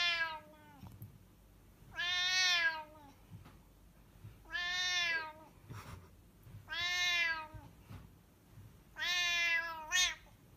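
A cat meowing: a long, drawn-out meow about every two seconds, five in all, each sliding down a little in pitch, with a short extra meow right after the last one.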